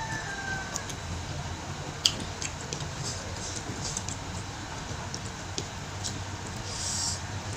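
Eating sounds from a plate of rice and goat meat: scattered small clicks and smacks as fingers pick at the food, the sharpest about two seconds in, over a steady low hum.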